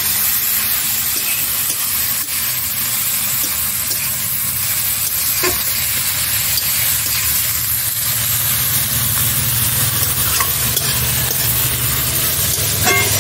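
Chopped red amaranth greens sizzling as they are stir-fried in a metal wok, a metal spatula scraping and tossing them, with a steady hiss and a few light clicks of the spatula against the pan.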